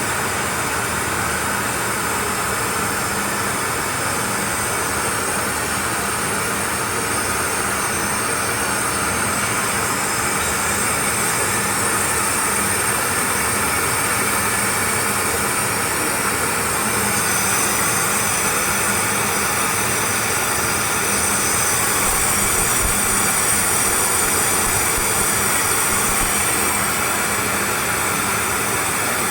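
Oxyhydrogen (HHO) generator welding machine running with its torch flame lit, a steady loud hiss with faint steady tones running through it.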